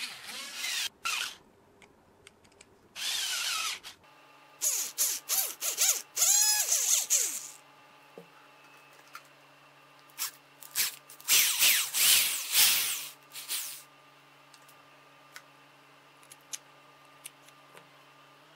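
A small electric power tool running in short bursts of one to three seconds, about four times, its pitch rising and falling as the motor speeds up and slows.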